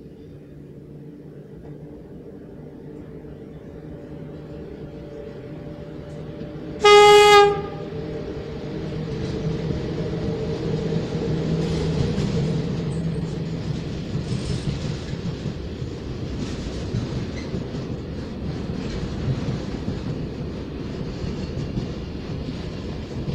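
Freight train approaching and passing, its locomotive's engine hum growing louder. One short, loud horn blast about seven seconds in, then the wagons roll past with a steady clickety-clack of wheels over the rail joints.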